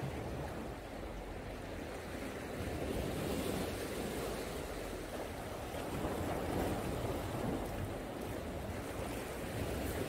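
Sea waves washing and breaking against dark volcanic basalt rocks along the shore: a steady surf sound that swells a little louder about three seconds in and again around six seconds, with a low rumble underneath.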